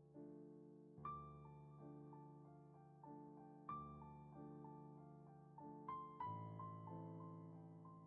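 Soft background piano music: a slow melody of single notes over sustained chords, with a new chord roughly every two to three seconds.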